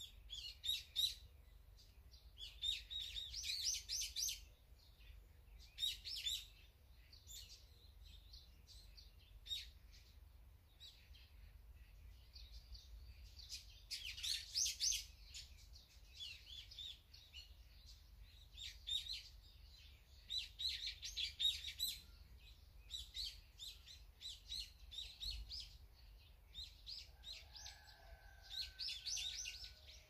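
Small songbirds chirping and calling in quick, repeated bursts of high notes, on and off throughout, some bursts louder and closer than others.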